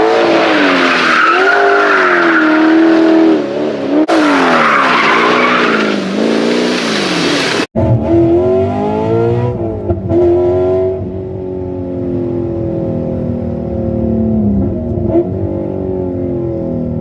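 Chevy 6.0 V8 in an LS-swapped Porsche 944 revving hard and dropping back, with tires squealing, in two short cuts. After a cut about eight seconds in, the V8 runs at lower, changing revs.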